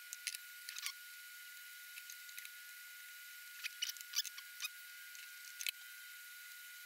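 Utility knife blade cutting and scoring small thin pieces of wood inlay against a wooden bench: faint, scattered small clicks and crackles, busiest a little past the middle.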